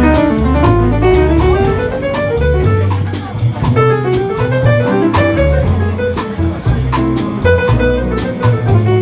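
Jazz played by a small band: a lead line of quick notes running up and down in pitch over a low bass line, with drum-kit strokes and cymbals keeping time.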